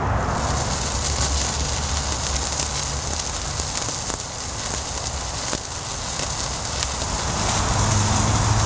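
Open grill fire burning under a tomahawk steak: a steady hiss and low rumble of flames and sizzling, with a few faint crackles.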